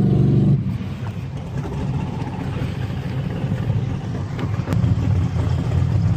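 Speed boat engine running at low speed near the dock, a steady low engine note that drops back after about half a second and picks up again near the end.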